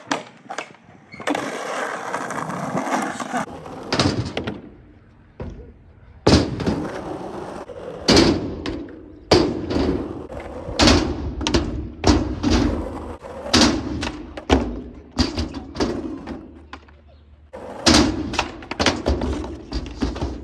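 Skateboard wheels rolling on rough asphalt, then riding a sheet-metal quarter pipe, with a run of sharp bangs about every second from about a third of the way in as the wheels and board strike the metal ramp. The ramp's metal surface is coming up where it meets the ground and hits the wheels on every pass.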